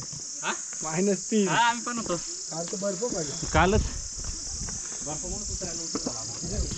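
Steady high-pitched chorus of insects, running unbroken, with brief voices over it in the first few seconds.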